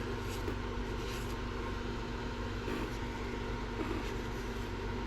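Steady mechanical hum, like a fan or small motor running, with a few faint short scrapes as glue squeeze-out is cleaned off the knife.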